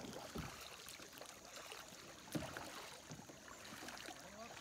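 Kayak paddles dipping and splashing in calm river water, with a couple of sharp knocks standing out, the loudest about two and a half seconds in.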